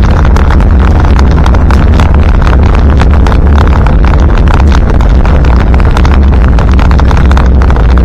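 1977 Land Rover Santana Series 3's 2.25-litre four-cylinder diesel engine running steadily under way, heard loud from inside the cab, with frequent knocks and rattles over an unpaved track.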